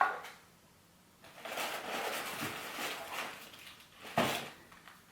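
Paper packaging rustling and crinkling for a couple of seconds as items are handled out of a gift box, followed by a single sharp knock about four seconds in.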